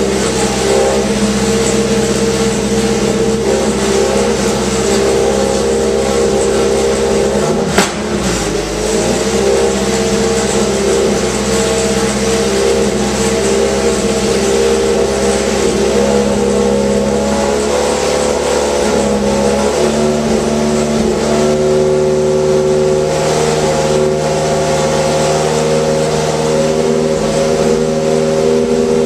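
Scion iQ's engine running at a steady, raised speed, strapped down on a chassis dyno. A single sharp click comes about eight seconds in with a brief dip in the engine sound, and the engine note shifts slightly lower about twenty seconds in.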